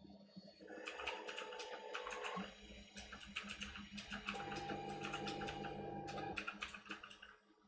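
3D printer's stepper motors running in steady pitched tones that change pitch from one move to the next, with rapid clicking ticks as the print head travels and lays down plastic. The sound drops away briefly near the end.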